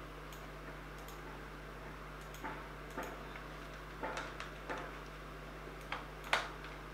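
Irregular clicks from a computer mouse and keyboard, about nine in all, with the loudest near the end, over a steady low electrical hum.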